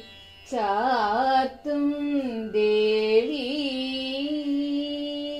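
A single voice singing a Thiruvathirakali dance song in Malayalam, with wavering, ornamented phrases that settle into one long held note from about three seconds in.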